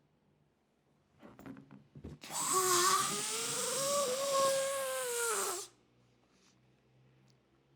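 Air let out of a rubber balloon through its stretched neck: a loud hiss with a wavering squeal riding on it for about three seconds, the pitch dropping just before it cuts off. A few short rustling puffs come just before it.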